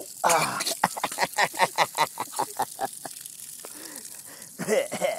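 A toddler's voice in a quick string of short vocal sounds, about five a second, for nearly three seconds, then one longer vocal sound near the end.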